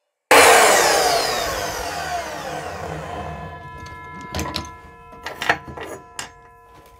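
Evolution R255SMS sliding miter saw spinning down after a cut through steel square tubing: loud at first, its pitch falling steadily as the blade coasts to a stop. A few sharp clanks of metal being handled follow near the end.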